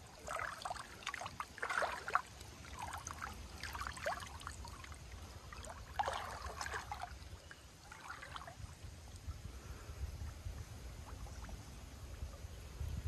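Water splashing and trickling in irregular bursts as a wet cast net is hauled in through shallow river water. It goes quieter after about nine seconds.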